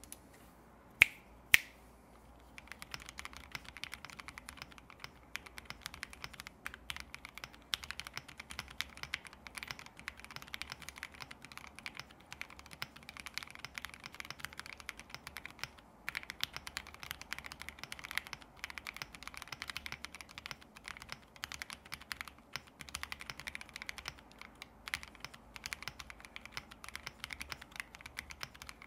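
Continuous typing on a Spark67 R3 mechanical keyboard with lubed Opblack switches, a POM plate, case and PCB foam, and XMI Cadet keycaps: a dense, quick run of keystroke clicks that starts about two and a half seconds in, with brief lulls. Just before it, two sharp, much louder clicks about half a second apart.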